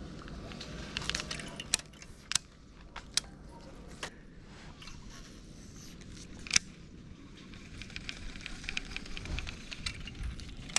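Baitcasting reel handled while fishing a lure: a few sharp clicks, the loudest about six and a half seconds in, then a run of light quick ticking near the end as the handle is turned to reel the line in.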